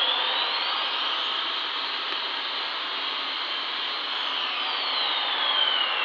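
Battery-powered toy airplane on wheels running on the floor, playing an electronic jet-engine sound effect: a steady rushing hiss with a whistle that rises to a peak about a second in, then a falling whistle from about four seconds in.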